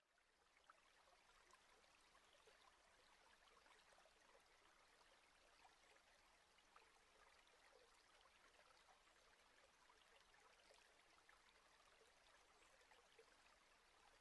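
Near silence: a very faint, even crackling hiss.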